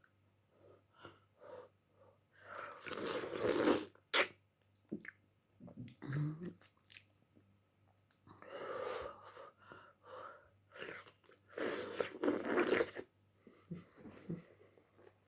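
Several loud breathy bursts from a person with the flu and a throaty cough, two of them close together near the end, with small clicks of eating between them.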